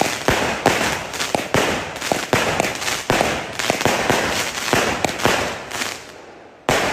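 'Machine gun' firecracker going off: sharp bangs, two or three a second, over a steady crackle. It dies down about six seconds in, then a fresh loud bang comes just before the end.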